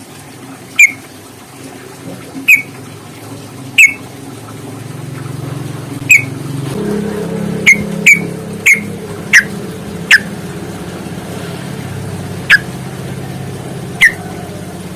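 Yellow-vented bulbul giving about eleven short, sharp calls, each sweeping quickly down in pitch, at irregular intervals of one to two seconds. A low steady hum runs underneath and gets louder about halfway through.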